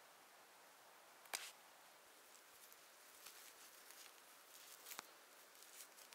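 Quiet handling sounds: a single sharp click about a second in, then faint rustling and crackling of twine being wound and pulled tight around sticks, with another click about five seconds in.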